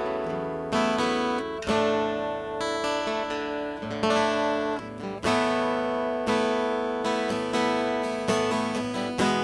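Tagima California acoustic guitar being played: chords struck about once a second and left to ring out, each starting sharply and fading before the next.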